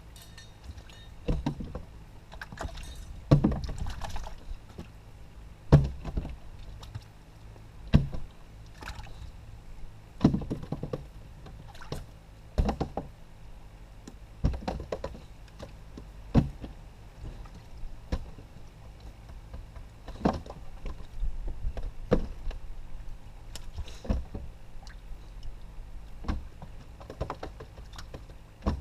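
Hollow knocks and thumps on a small fishing boat's hull, one every one to two seconds, over a low steady hum.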